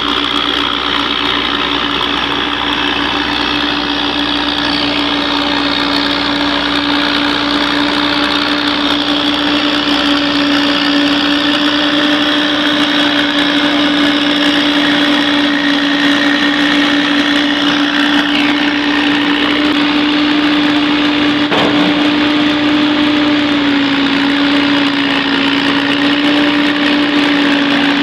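A vehicle engine running steadily, with a constant low hum and a fainter high whine; the hum's pitch drops slightly about two-thirds of the way through.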